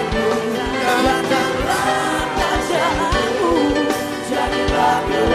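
Live worship band playing a pop-style praise song, with a steady drum beat under a singer's voice.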